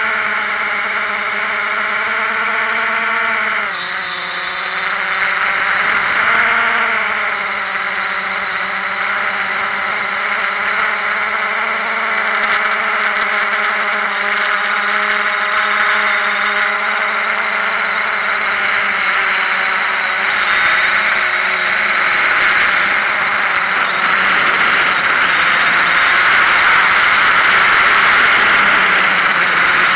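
Quadcopter drone's electric motors and propellers running, a steady buzzing whine over a rushing noise. The pitch drops about three and a half seconds in and bends briefly a few seconds later as the throttle changes, and the rushing grows a little louder near the end.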